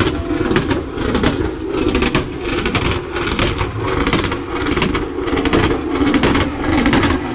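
A car engine revving hard in repeated surges, about one and a half a second, as the car spins donuts on the pavement.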